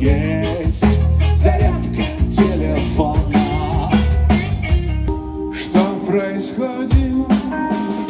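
Live rock band playing, with drum kit, bass guitar and keyboard. About five seconds in, the bass and drums drop back and held chords ring on.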